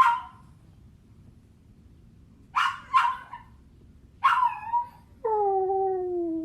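Dog barking and yipping in short cries, two close together about two and a half seconds in and a yelp just after four seconds, followed by a long crying whine that slowly falls in pitch and cuts off near the end.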